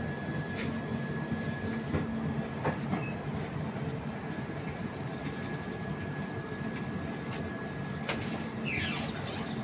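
Train running, heard from inside a moving coach: a steady rumble with a faint high whine, a few sharp clicks, and a short falling whine near the end.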